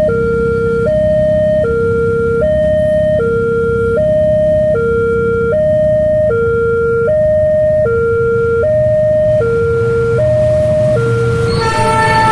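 Railroad crossing siren alternating between two tones, a higher and a lower one, each held for about a second in a steady hi-lo pattern, over a steady low rumble. This is the crossing's new siren, pitched a little lower than the old one. Near the end a louder rushing noise with slowly falling tones sets in.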